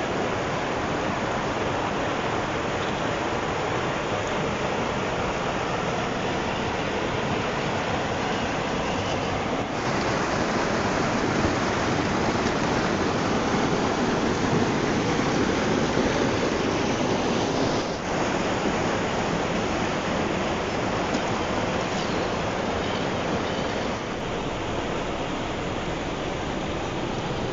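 Steady rushing of flowing river water, shifting abruptly in level a few times.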